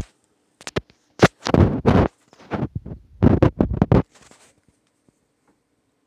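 Rubbing and bumping on the microphone, several rough bursts over about three and a half seconds, then quiet.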